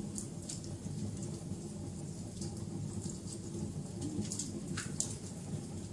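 Wood fire crackling: a steady low rumble with sharp pops and snaps scattered through, a few louder ones near the end.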